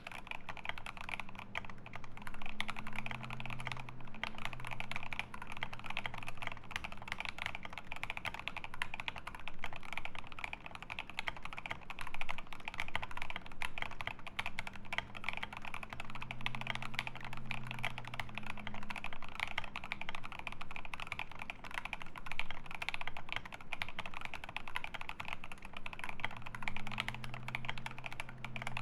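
Steady, fast typing on a GMMK Pro mechanical keyboard with lubed Alpaca linear switches in an aluminium plate and ASA-profile keycaps, a dense run of keystroke clacks that begins right at the start.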